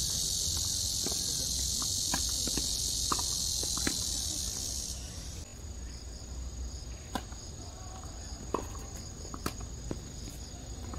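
Cicadas buzzing loudly in the trees, the drone thinning to a narrower, quieter whine about halfway through. Over it, the short, irregular pops of tennis balls struck by rackets and bouncing on the hard court.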